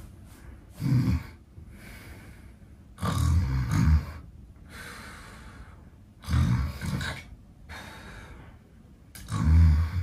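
A man snoring loudly in a deliberately exaggerated, faked way: four heavy snores about every three seconds, the second lasting about a second, with softer breathing between them.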